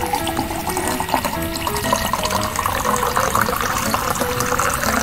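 Background music with a simple melody of short held notes, over a steady trickle of water running from a drinking straw into a plastic cup, pushed out of the bottle by air pressure.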